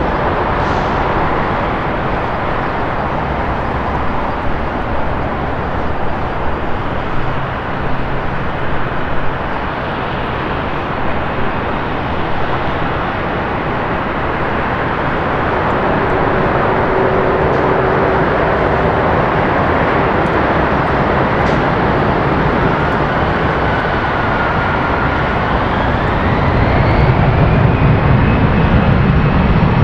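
Jet airliner engines running at an airport: a steady rumble and hiss that grows louder in the last few seconds, with a faint rising whine near the end.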